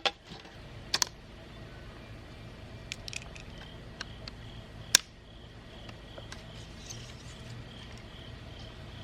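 Sharp clicks and taps of plastic and metal parts being handled and pried while an old LCD monitor is taken apart, the loudest snap about five seconds in, over a steady low hum.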